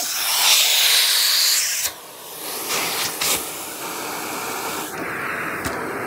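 AirVac central vacuum drawing air through its hose with a loud hiss that cuts off sharply about two seconds in. A couple of knocks follow. Near the end a steadier, lower rush of suction starts.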